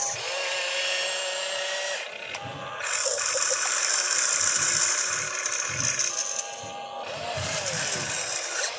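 Radio-controlled model excavator's small electric motors whining, the pitch shifting as the arm digs, swings over and dumps a bucket of dirt, then swings back.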